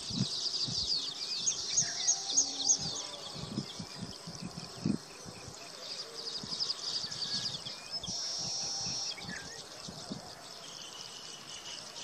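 A colony of baya weavers chattering at their nests: many fast, overlapping chirps and trills, with a steady buzzing note for about a second near two-thirds of the way through.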